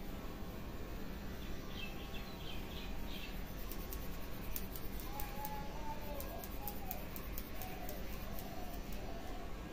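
Birds calling over steady background noise: a quick run of short high chirps about two seconds in, then wavering lower calls through the second half. Faint sharp clicks also come in the second half.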